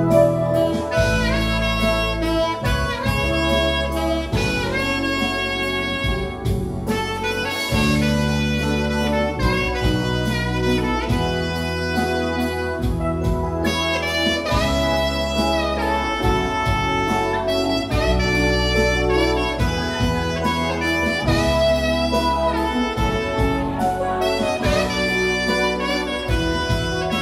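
Live band playing an instrumental passage, with a saxophone carrying the melody over keyboard, a bass line and a drum kit.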